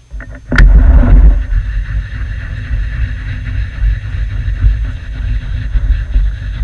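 Small belt-driven metal lathe switched on with a click about half a second in, its electric motor and belt drive then running with a steady low rumble.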